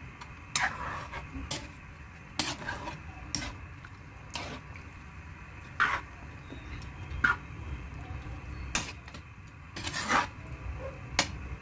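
A metal ladle clinking and scraping against a metal wok while chicken in coconut milk is stirred: about ten sharp clanks, spaced irregularly roughly a second apart.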